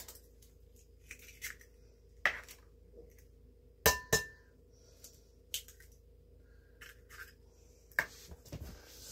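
An egg tapped against the rim of a glass mixing bowl to crack it: two sharp knocks close together about four seconds in. Scattered lighter clicks and taps come before and after.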